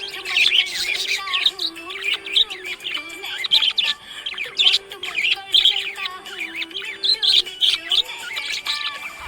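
Budgerigars chirping and warbling in quick, busy chatter, over a song playing underneath.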